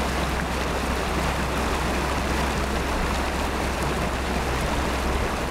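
Small mountain stream rushing over rocks in a short cascade: a steady, even rush of water with a low rumble underneath.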